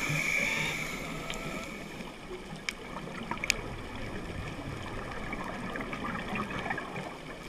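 Underwater ambience heard through a diving camera's housing: a steady rushing hiss with a burst of scuba exhalation bubbling in the first second and a few sharp clicks about three seconds in.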